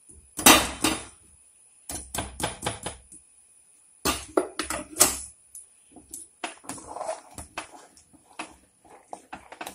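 Metal-on-metal clanks and clinks of kitchenware at a pressure cooker. A steel pan knocks against the cooker's rim as it is emptied, and then a steel spoon scrapes and taps inside the cooker as thick cooked dal is stirred. The loudest knocks come in the first second, with further clusters at about two and four seconds and lighter clicks after that.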